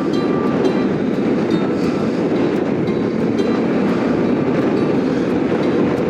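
BMW R 1250 GS Adventure boxer-twin riding slowly on a dirt road: a steady engine and wind rumble with scattered light ticks.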